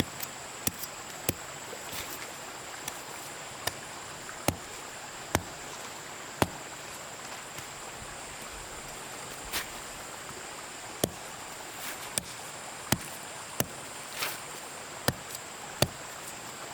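A series of sharp knocks at uneven spacing, roughly one a second, over a steady outdoor hiss and a high, steady insect drone.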